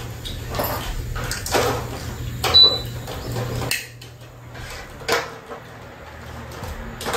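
About six short knocks and clicks, spread unevenly, the loudest about two and a half seconds in, over a low hum that stops about halfway.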